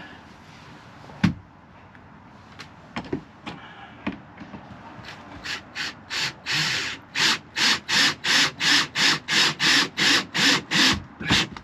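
A hand tool scraping on wood in rhythmic back-and-forth strokes, about three a second. The strokes start hesitantly and grow louder and steadier, and there is a single sharp click about a second in.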